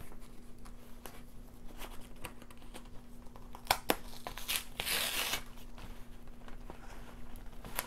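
Cardboard mailer box being handled and opened by hand: scattered clicks and rustling, with a longer tearing, scraping sound about five seconds in.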